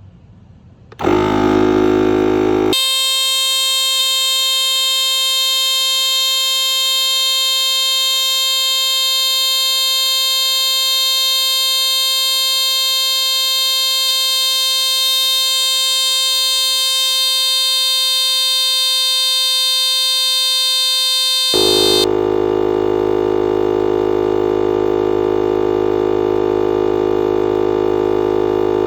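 Husky 12-volt portable tire inflator switching on about a second in and running steadily with a loud buzzing hum while it pumps up a car tire.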